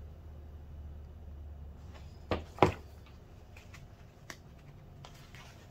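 Paper instruction booklet being handled: two sharp paper slaps a little past two seconds in, the second the louder, as the open booklet is laid down on the table, then a few light page rustles.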